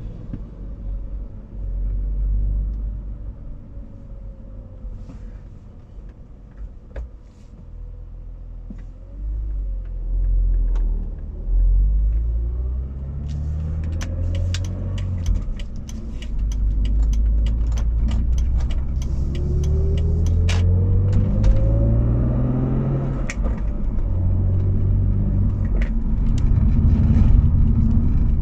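BMW Z4 driving at low speed, its low running rumble rising and falling with the throttle, with a hum whose pitch climbs as the car accelerates. This rear-end hum under low-speed acceleration is the fault the owner cannot yet explain. A run of scattered sharp clicks comes through the middle.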